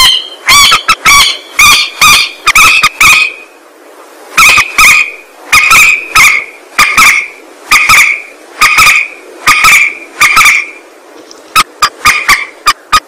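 Lure-call recording of a mandar (peruk) rail: a long series of loud, sharp call notes. They come in quick succession at first, then more evenly at about one and a half a second, with a couple of short breaks and a faster run near the end.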